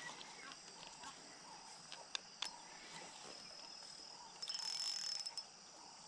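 Insects chirring steadily in a high pitch, with a louder buzzing stretch about halfway through that lasts about a second, and a few faint clicks.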